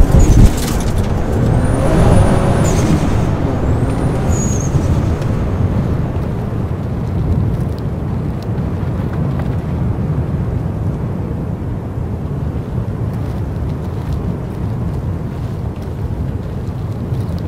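Modified Toyota Supra Mk4's turbocharged 2JZ straight-six accelerating away, revs rising and falling through the gears with a high turbo whistle in the first few seconds. It then fades into a steady low rumble that slowly gets quieter.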